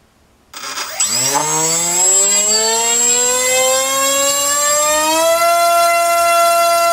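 Turnigy 2826-6 2200 kV brushless outrunner motor on a 3-cell pack, spinning a TGS 6x4 propeller on a thrust stand. It starts about half a second in and winds up with a rising whine as the throttle is opened over about four seconds, then holds a steady high pitch.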